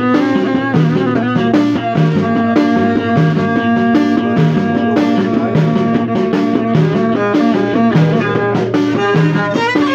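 Moroccan Middle Atlas folk music played on instruments: a violin and plucked strings repeat a short melody over a steady, even beat.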